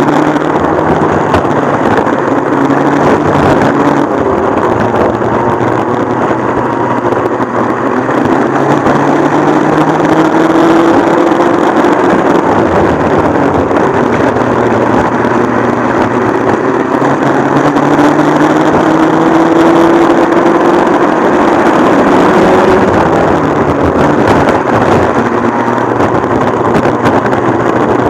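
Modified McCulloch MC-49 two-stroke kart engine running hard at speed, its pitch climbing as the kart accelerates and dropping back as it lifts off, three times over.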